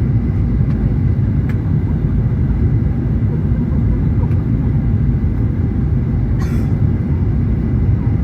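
Steady low rumble of an airplane's engines, with a few faint clicks and a brief hiss about six and a half seconds in.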